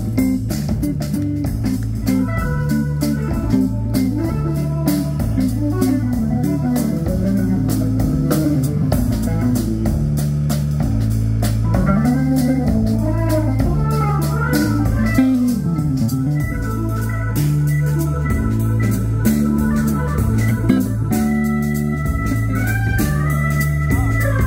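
Live rock band playing an instrumental passage: a Hammond organ leads over a drum kit and a low, repeating bass figure, with electric guitar in the mix.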